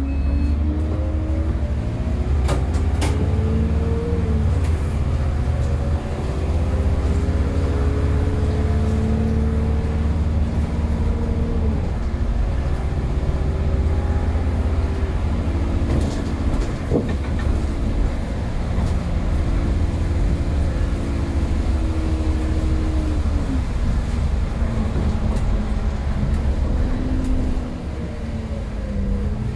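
Bus diesel engine and ZF automatic gearbox heard from inside the saloon, with a heavy low rumble. The bus accelerates, its pitch rising in each gear and dropping at each of about three upshifts, then falling as it slows near the end, with a few sharp rattles along the way.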